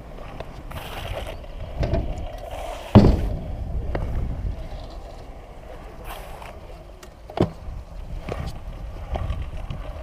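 Stunt scooter wheels rolling on concrete ramps, with a sharp clack about three seconds in and a few smaller knocks later as the deck and wheels hit the concrete.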